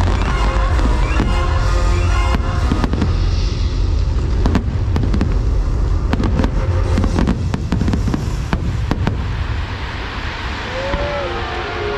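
Fireworks bursting in a rapid barrage of bangs and crackles over the show's music. The bursts stop about nine seconds in, leaving the music playing.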